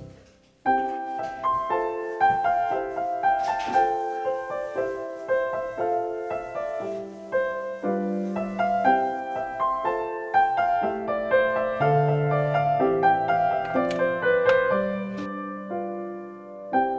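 Background piano music, a gentle run of single notes, starting up about a second in after a brief gap.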